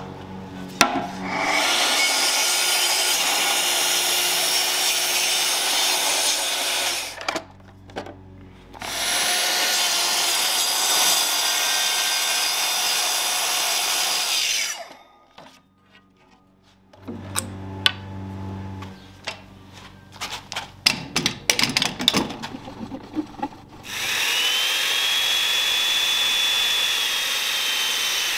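Chain mortiser cutting joist pockets into oak, in three runs of several seconds each. The last run opens with the motor's rising whine as it spins up. Between runs there are knocks and clatter as the tool is reset.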